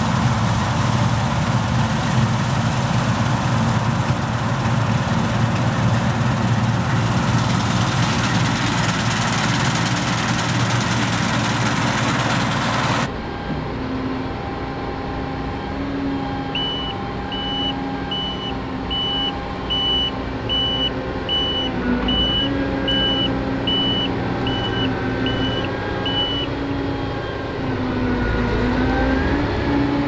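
Claas Lexion combine harvester running while it cuts and threshes wheat, a steady heavy roar. About 13 seconds in this gives way to the lower, steadier engine hum of a tracked Claas Lexion 8700 combine, with its reversing alarm beeping about one and a half times a second for roughly ten seconds. The engine pitch rises near the end.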